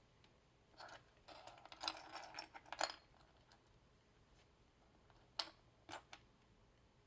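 Small plastic model-kit parts clicking and rattling as they are handled: a quick cluster of taps and rattles in the first few seconds, then three sharp separate clicks near the end.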